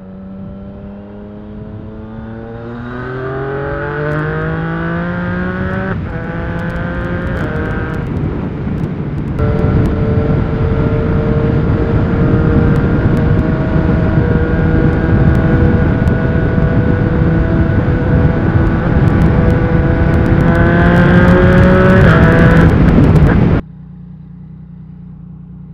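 Yamaha MT-09's 847 cc inline-three engine through a Yoshimura R55 slip-on exhaust, heard from the bike under way with wind rush. The engine note climbs under acceleration, breaks off briefly, holds steady at cruise, then climbs again. Near the end it cuts off suddenly to a much quieter low idle.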